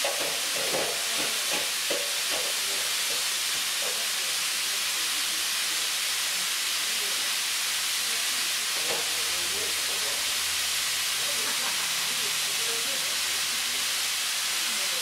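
Steady hiss of steam at a lavender steam-distillation still, with a few faint metallic knocks in the first two seconds as the lid clamps of the pressure vessels are worked.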